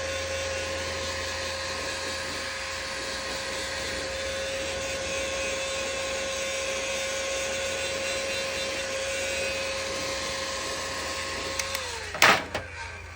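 Heat gun running steadily with a constant whine while it shrinks rubber heat-shrink tubing onto an air hose coupling. Near the end it is switched off and the whine falls away as the fan spins down, followed by a sharp knock.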